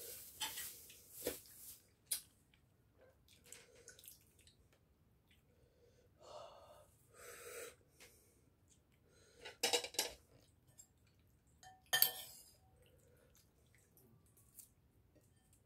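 Eating sounds at a table: scattered light clinks of dishes and cutlery, with breathing and mouth noises. There are a few louder sharp sounds about ten and twelve seconds in.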